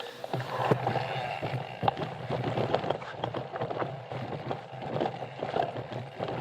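Mountain bike rattling and knocking over rocky trail: a run of irregular clicks and thuds over a low steady rumble.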